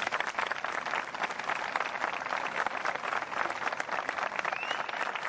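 Audience applauding a wind band at the close of its piece: a dense, steady crackle of many hands clapping.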